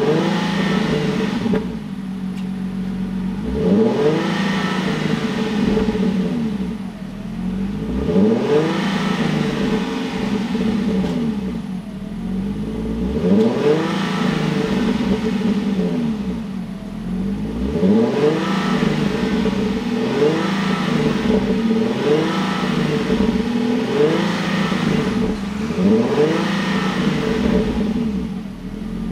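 HV37 Nissan Skyline Hybrid's 3.5-litre V6 revved again and again while stationary, heard through a BLITZ NUR-SPEC C-Ti aftermarket exhaust with a stainless body and titanium tail silencer. Each rev rises and falls over a second or two above a steady idle, about a dozen times.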